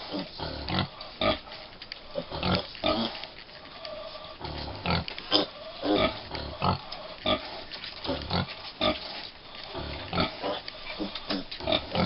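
American Guinea Hog sow and her piglets grunting while the piglets nurse: a steady run of short grunts, about one or two a second.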